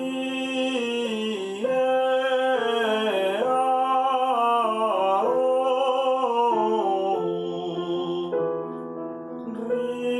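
A man sings a vocal warm-up exercise over piano accompaniment: sung vowel syllables stepping up and down a short scale, placed forward like the vowel 'i' to keep the voice away from the throat.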